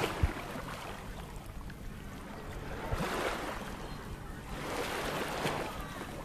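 Sea waves washing in on the shore, the rush swelling and fading a few times.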